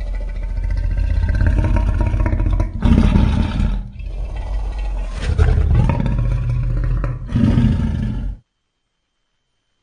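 Giant piranha monster sound effect: a series of heavy, low-pitched creature roars following one another with brief gaps, cutting off suddenly about eight seconds in.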